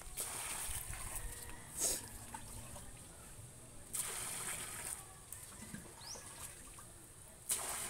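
Water poured from a pail into a well in a heap of dry cement and sand mix, splashing onto the wet mix. It comes in a few separate pours of a second or so each, with one short sharp splash early on.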